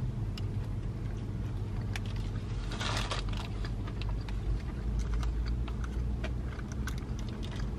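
Paper and packaging rustling, with a louder crinkle about three seconds in and small clicks and crackles as a plastic dipping-sauce cup is picked up and its peel-off lid pulled back, over a steady low car-cabin hum.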